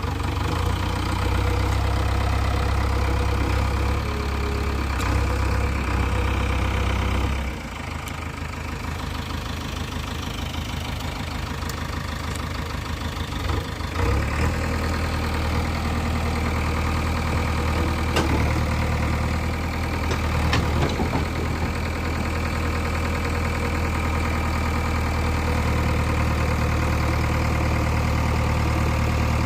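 Diesel engine of heavy machinery running steadily. Its low hum drops about seven seconds in and picks up again around fourteen seconds, with a couple of short clicks later on.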